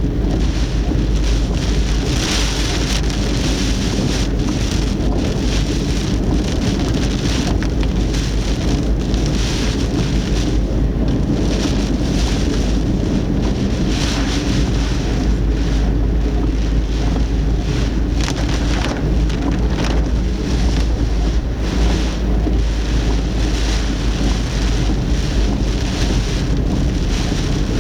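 Heavy typhoon rain and wind beating on a car, heard through a dashcam, with a constant low rumble underneath. The rain noise swells and eases in irregular waves every second or two.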